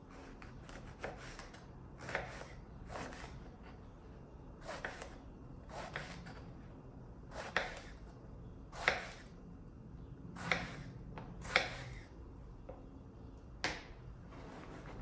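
Kitchen knife cutting an aubergine into cubes on a wooden cutting board: a series of separate crisp knocks of the blade through the flesh onto the board, roughly one a second at an uneven pace, the last near the end.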